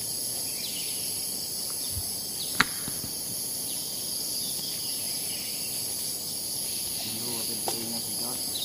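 A steady, high-pitched chorus of insects, shrilling without a break, with one sharp click about two and a half seconds in.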